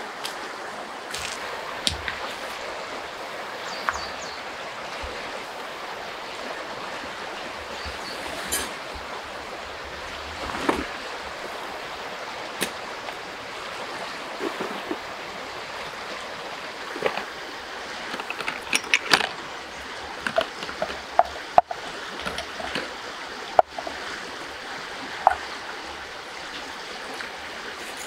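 Steady rush of a flowing river, with scattered clicks and knocks of things being handled, more frequent and loudest in the second half.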